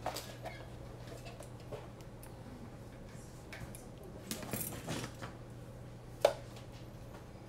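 Small metal hand tools handled on a workbench: a few light clicks and clinks, the sharpest about six seconds in, over a steady low hum.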